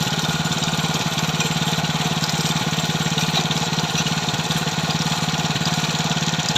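KB-365 mini tiller's small engine running steadily at a constant speed, with a rapid, even firing beat.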